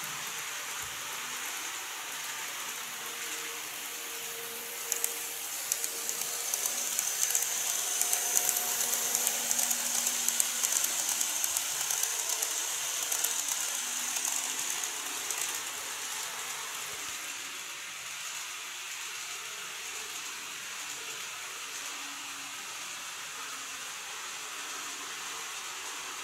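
Model railway train running on its track: a steady hiss, then from about five seconds in roughly ten seconds of louder, brighter running with wheels clicking over the rail joints as it passes close by.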